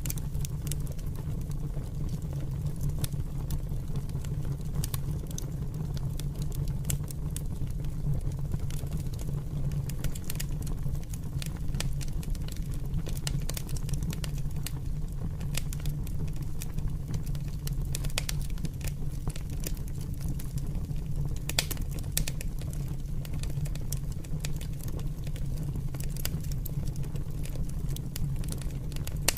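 Open fire burning and crackling, with frequent irregular sharp pops over a steady low rumble.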